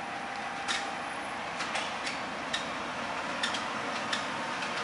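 Hardinge TFB precision lathe spindle running on its variable-speed drive as the speed is pushed up toward 3000 RPM, a steady, quiet mechanical whir growing slightly louder, with a few light clicks along the way.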